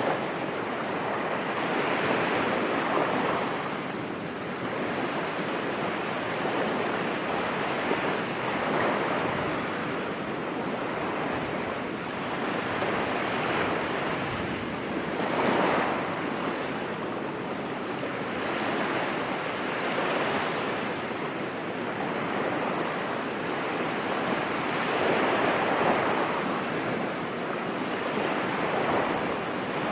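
Sea waves breaking on a beach: a continuous wash of surf that swells every five or six seconds as each wave comes in, the loudest surge about halfway through.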